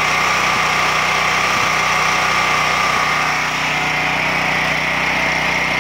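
Champion 41532 portable generator's gas engine running steadily at governed speed, under no load, as its speed is trimmed to give a 62 Hz output. The tone shifts slightly about halfway through.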